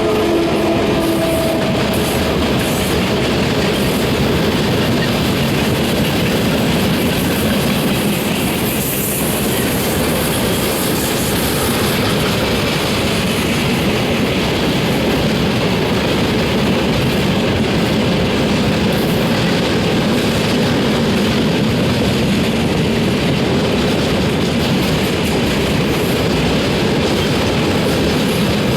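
Freight train of railway tank cars rolling past, the wheels clattering steadily over the rail joints.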